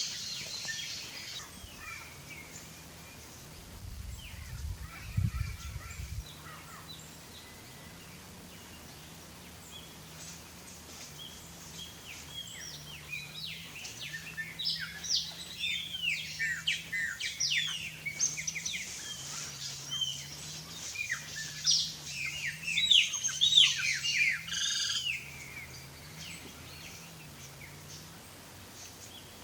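A pair of buff-necked ibises calling together in a long, loud burst of rapid, repeated calls, starting about twelve seconds in and stopping abruptly about twenty-five seconds in. A brief low rumble comes about four seconds in.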